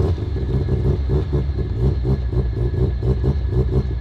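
Mazda RX-7's twin-rotor rotary engine running with an even pulsing rhythm, moments after catching from a start. It has been cranked for a long while, which the owner later puts down to flooding.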